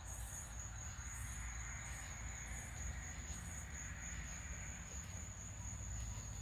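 Crickets trilling steadily in a single continuous high-pitched tone, with a low rumble underneath.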